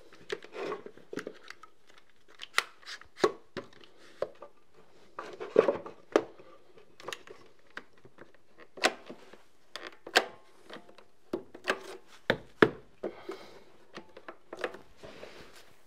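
Clamps and props being set up and tightened to press glued skirting board against the wall: a string of irregular sharp clicks and knocks, with one heavier thump later on.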